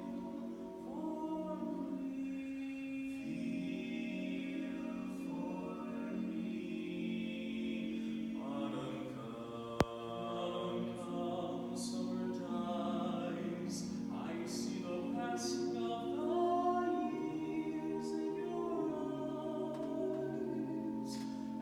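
Barbershop a cappella singing: several voices holding close harmony on long sustained chords that shift every few seconds. A single sharp click sounds about halfway through.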